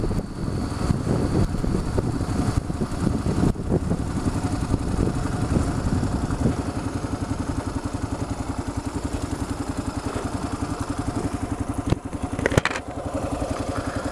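Kawasaki KLR650's single-cylinder engine, louder and uneven for the first few seconds, then idling with an even pulsing beat from about six seconds in. A few sharp clicks come near the end.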